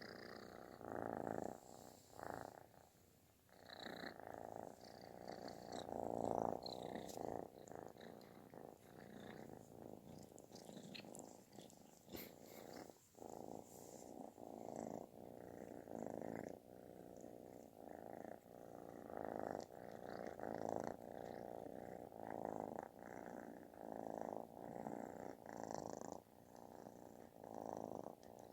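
Calico kitten purring loud and snore-like, the purr swelling and fading in pulses about once a second.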